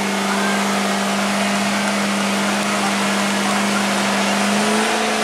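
The giant robot's LS3 V8 engine running steadily as it drives the hydraulic pumps. Its pitch rises slightly about four and a half seconds in.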